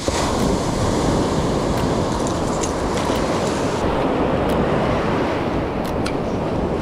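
Ocean surf breaking and washing around the feet in shallow water, a steady rushing wash, with wind rumbling on the microphone.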